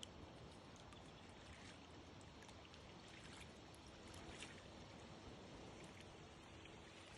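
Faint water sounds around a kayak: soft trickling and a few light splashes of paddle and hull in the water.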